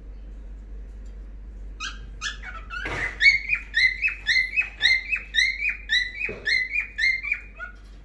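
Cockatiel whistling a quick run of repeated chirps, about two to three a second, each a short note that bends in pitch; it starts about two seconds in and stops shortly before the end. Two brief knocks sound among the chirps.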